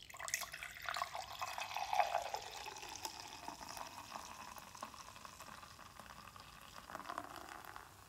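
Beer poured from a bottle into a dimpled glass beer mug: a splashing stream as the mug fills and the head foams up. It starts suddenly, is loudest about two seconds in, and stops just before the end.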